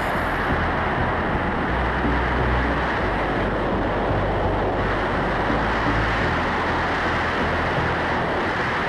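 Loud, steady rush of wind over the microphone during a wingsuit flight, with an uneven low buffeting underneath.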